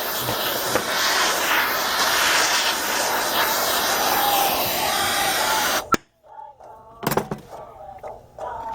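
Jeweller's soldering torch flame hissing steadily on a silver buckle, after the solder has flowed all the way round the bezel. The hiss cuts off suddenly about six seconds in, followed by a click and then a knock.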